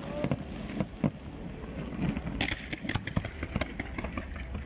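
Fireworks going off, with scattered sharp pops and crackles over a steady low rumble.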